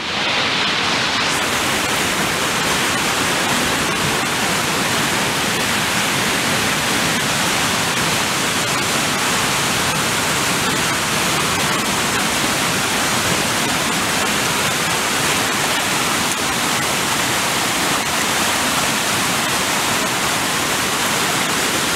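River in flood and a waterfall rushing with swollen rainwater: a steady, unbroken rush of white water.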